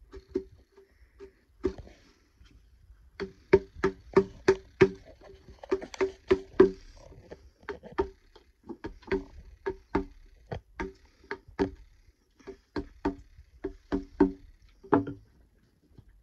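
A wooden mallet strikes the handle of a timber-framing chisel, chopping out a mortise in a timber beam. There are a couple of knocks at the start, then a steady run of about two or three knocks a second, each with a short hollow ring. The knocking stops about a second before the end.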